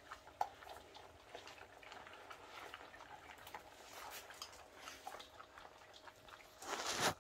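Several dogs and a cat eating dry kibble from one shared bowl: a steady scatter of small crunches and clicks, with a short louder burst of noise near the end.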